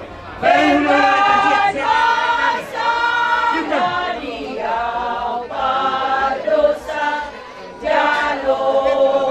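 A group of women singing together without accompaniment, in long held phrases broken by short pauses.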